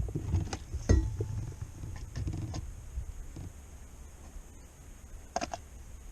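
Handling noises on a kayak while a crappie is measured: a sharp knock at the start and another about a second in, then quieter clicks and bumps.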